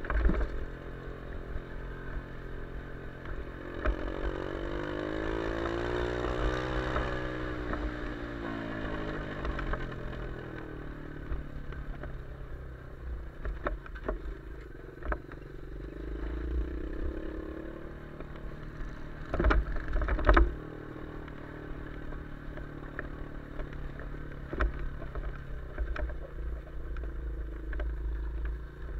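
Off-road vehicle engine running along a gravel track. Its pitch rises and then falls again between about four and ten seconds in. Short rattles and knocks are scattered through, with a cluster of loud knocks about twenty seconds in.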